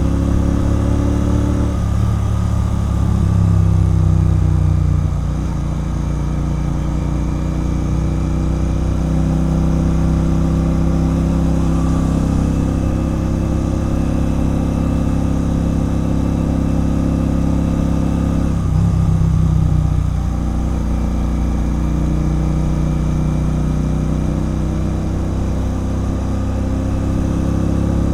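Royal Enfield Continental GT 650's 648 cc parallel-twin engine running through a loud RRP aftermarket exhaust while riding. The note is steady, swelling louder and shifting in pitch twice, a couple of seconds in and again about two-thirds of the way through, as the throttle is opened.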